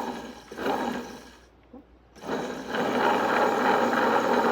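Electric stone grinder switched on: after a short noise and a brief quiet gap it starts about two seconds in and runs steadily and loudly, its stones grinding sesame seeds with lemon juice and water into tahini.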